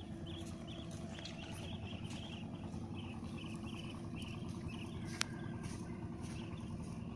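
Outdoor ambience: a steady low rumble under a rhythmic high chirping that repeats about three times a second, with one sharp click about five seconds in.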